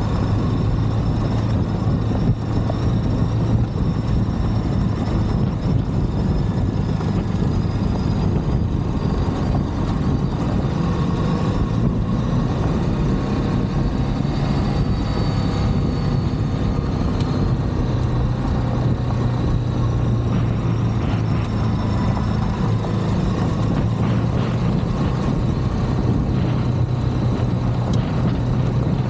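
Ducati DesertX's 937 cc L-twin engine running steadily at an easy cruise on a gravel road. It sits under a constant rush of wind and road noise, with a steady low hum and no revving or gear changes.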